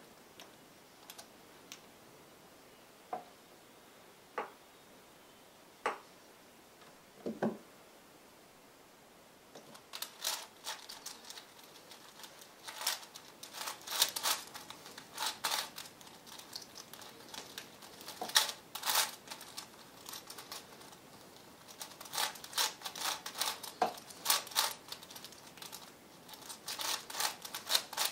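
V-Cube 7 (7x7x7 puzzle cube) being turned by hand: its plastic layers click and clack as they turn. A few single clicks a second or so apart for the first several seconds, then quick runs of rapid clicking from about ten seconds in.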